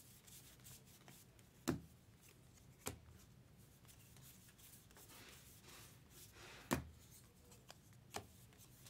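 Trading cards being handled and slid through the hands, a faint rustle broken by four sharp taps. The loudest taps come near two seconds in and near seven seconds in.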